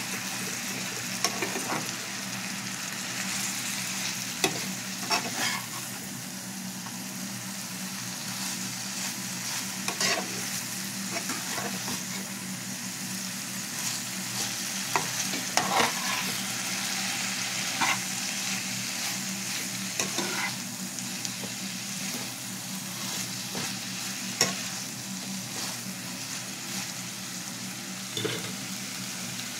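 Shredded cabbage and carrots sizzling in a frying pan as they are stir-fried with a slotted metal spatula. Every few seconds the spatula scrapes and clacks against the pan.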